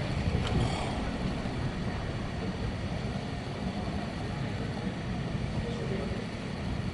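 Steady low rumbling background noise of an outdoor public place, with a few faint clicks in the first second.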